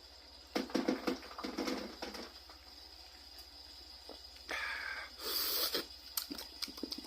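A person sipping a whiskey and ginger ale, with short mouth and breath sounds of tasting, and a breathy exhale near the middle.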